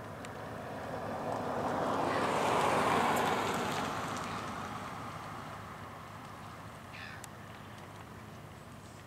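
Harbour tug's Caterpillar diesel engines and the rush of its wash at speed, swelling to a peak about three seconds in and then slowly fading.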